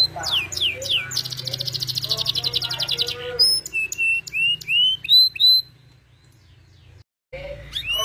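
Domestic canary singing: quick sweeping whistled notes, then a fast rolling trill lasting about two seconds, then separate chirps. The song stops for over a second near the end, then starts again.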